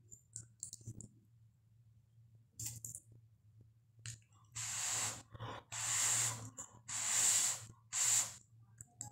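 Four long airy hisses of breath through pursed lips at a forkful of Maggi instant noodles, one after another from about four and a half seconds in. A few light clicks of a fork against a steel bowl come in the first second.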